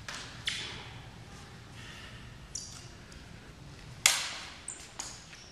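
Steel rapier blades clashing in a fencing bout: several sharp clinks, each with a brief high ring, the loudest about four seconds in.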